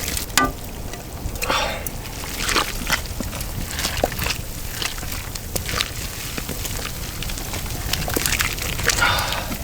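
Wood fire burning under a cast-iron cauldron, crackling with irregular sharp pops and short hisses over a steady low rush.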